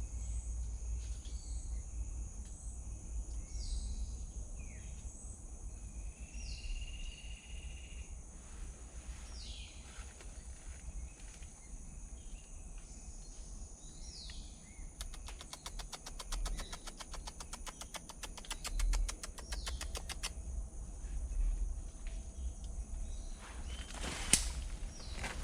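Rainforest ambience: a steady high insect drone with repeated short, falling bird calls and one longer whistled note about a quarter of the way in. A fast insect ticking runs for several seconds past the middle, and a single sharp knock comes near the end.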